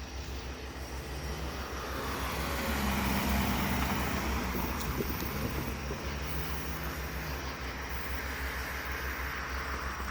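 Motor vehicle running, with a low pulsing rumble throughout and a swell of noise that rises about two seconds in and fades away over the following few seconds.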